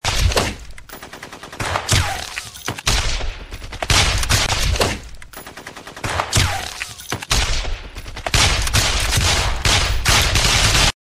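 Battle sound effect of gunfire: rapid bursts of automatic and machine-gun fire mixed with single shots. It starts suddenly and cuts off sharply near the end.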